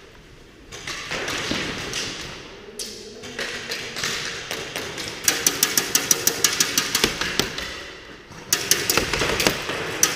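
Airsoft guns firing in rapid strings of sharp cracks, about seven shots a second: one string starting about five seconds in and a second near the end.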